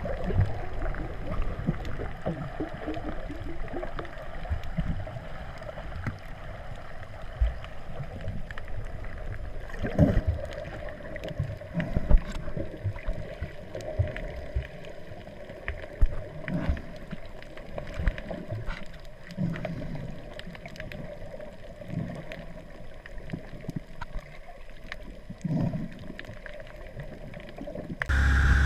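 Muffled underwater sound heard through a waterproof camera housing: a low wash of moving water with irregular knocks and swells every few seconds. About half a second before the end it cuts to the louder, steady noise of a motorboat running through its wake.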